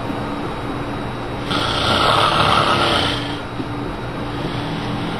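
A person snoring: one long snore, starting about a second and a half in and lasting about two seconds, over a steady low hum.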